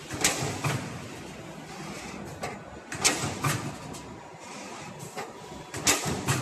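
CNC automatic punching machine punching holes in an aluminium profile: a burst of sharp metallic knocks and heavy thuds at each stroke, repeating about every three seconds, over a steady machine hum.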